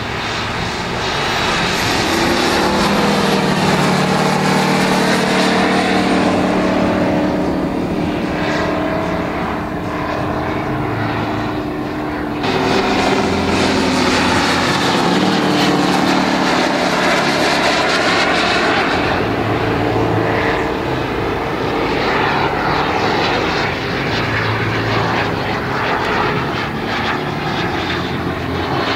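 Engine of a large radio-controlled Focke-Wulf Fw 190 model aircraft flying overhead, its note rising and falling in pitch as it passes. About twelve seconds in, the sound cuts abruptly to another model aircraft's fly-past.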